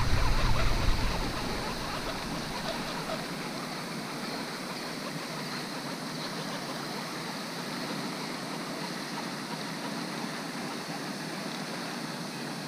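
Steady rushing splash of a pond's spray fountain, with a low rumble in the first second or so.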